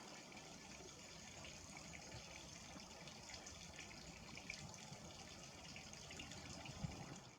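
Faint, steady outdoor background hiss with a few faint short high ticks, cutting off abruptly at the end.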